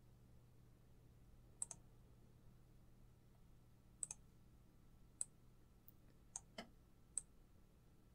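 Faint computer mouse clicks, about eight spread out, some in quick pairs, over near silence with a low steady hum.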